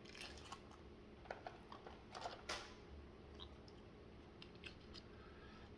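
Near silence with faint, scattered small clicks and light mouth sounds of someone quietly eating fries dipped in ranch.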